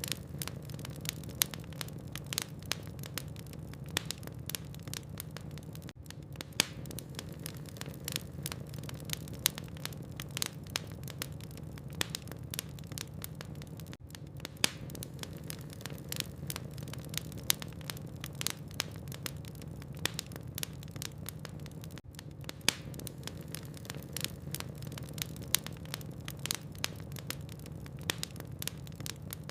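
Burning logs in a fireplace crackling: frequent irregular snaps and pops, a few louder than the rest, over a steady low rumble.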